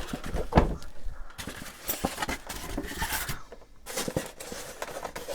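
Rustling and a few light knocks as the contents of a shipping box are handled and unpacked.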